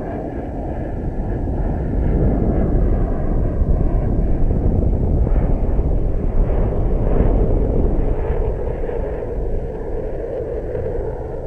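Wind buffeting the microphone of a GoPro on a high-altitude balloon payload in flight: a steady low rumble, a little louder in the middle.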